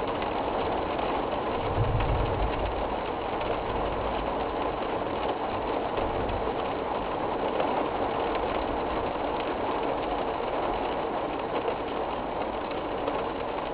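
Steady rushing noise of a severe thunderstorm's strong wind and rain, with a low rumble of wind buffeting about two seconds in.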